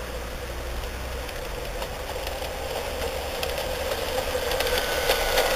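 LGB Spremberger G-scale model locomotive with its wagons running on garden track and coming closer: a steady electric-motor and gear hum with wheels clicking over the rails. Both grow louder toward the end.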